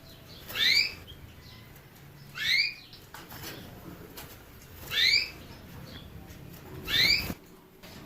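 Caged songbird giving the same short rising call note four times, about every two seconds.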